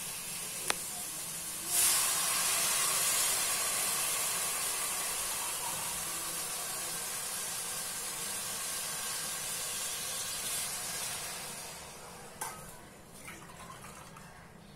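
Water poured from a steel tumbler into a hot pot of frying bottle gourd and biryani masala: a sudden loud hiss and sizzle about two seconds in that slowly dies away, with a light metal clink near the end.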